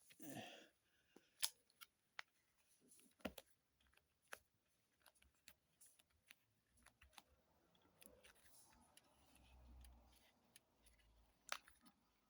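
Near silence broken by faint, scattered clicks and taps, a few sharper than the rest: a Samsung Galaxy S9 being handled as a new back cover is pressed onto it.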